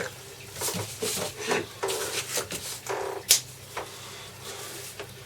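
Soft handling and rustling noises as a plastic electric staple gun is picked up and turned over, with one sharp click a little past three seconds in.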